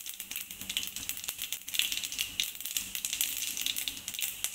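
Cumin seeds crackling and spluttering in hot oil in a kadhai, a dense run of fast small pops and ticks: the seeds tempering in the oil for a phodni.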